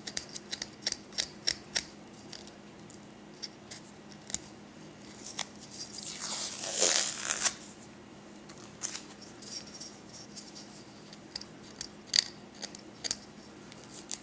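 Masking tape being picked at and peeled off a knurled aluminium Maglite tube: scattered small crackles and clicks, with one longer, louder rip about halfway through.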